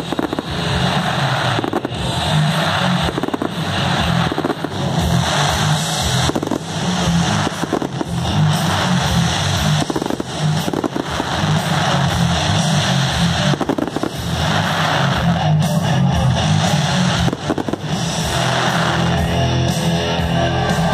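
Aerial fireworks bursting with many bangs and crackles over loud music. The bursts thin out near the end.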